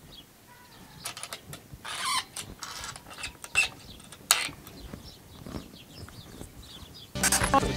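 Scattered clicks, taps and a short scrape of hand tools and 2x2 lumber being handled on a wooden workbench. Background music comes in near the end.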